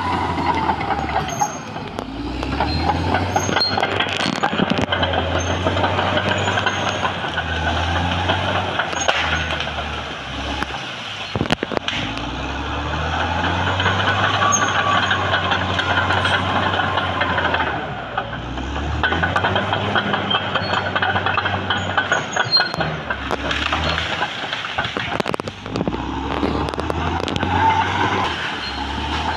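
Caterpillar D6R XL crawler dozer's diesel engine working, its note rising and falling with the load as it pushes into trees and brush. Scattered sharp cracks of breaking wood, with a loud one near the middle.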